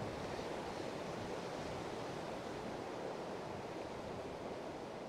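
Steady rushing of a river's current flowing past the bank.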